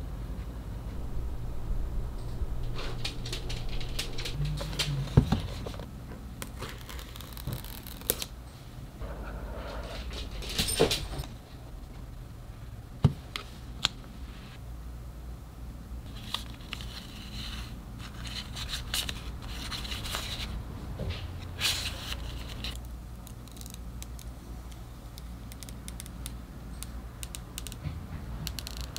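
Unboxing an iPhone 13 Pro Max by hand: scattered light taps and clicks and rustling of the box and wrapping, with the screen's protective film peeling off near the end, over a low steady hum.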